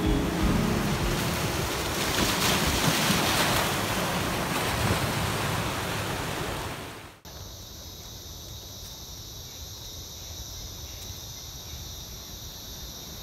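Ocean surf breaking and washing over a rocky shore, a steady rush of water noise. About seven seconds in it cuts off suddenly to a quieter steady hiss with a thin high ringing.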